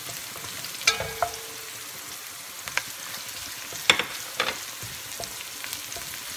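Chopped onion and garlic sizzling in oil in an enamelled pot, stirred with a wooden spatula. Now and then the spatula scrapes and knocks against the pot, most sharply about four seconds in.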